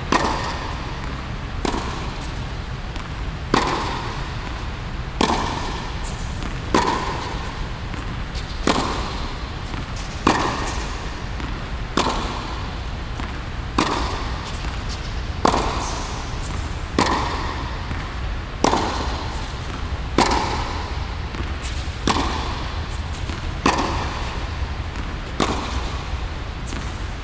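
Tennis balls struck by a racket and bouncing on a hard court, a sharp pop about every one and a half to two seconds, each ringing briefly in the echoing indoor hall, over a steady low hum.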